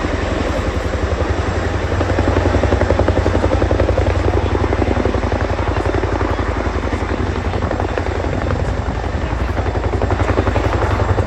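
Boeing Chinook HC.6 tandem-rotor helicopter flying with its rotor blades beating in a rapid, steady pulse over a deep, continuous drone. It swells slightly a couple of seconds in and again near the end.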